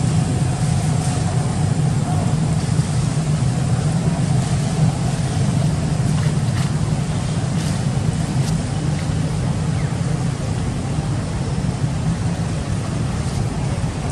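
A loud, steady low rumble without a break, with faint rustling and crinkling of plastic sacking as monkeys pick through it.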